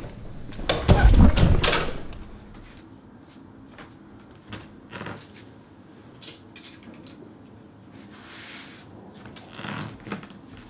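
A deep, heavy thud about a second in, lasting about a second. After it come a few faint clicks as a stained-glass ornament is lifted off a tiled floor, and soft rustling and steps near the end.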